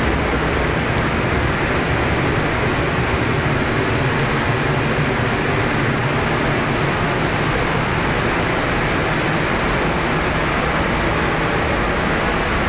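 Steady rushing of a paint spray booth's air extraction and ventilation, an even unbroken noise.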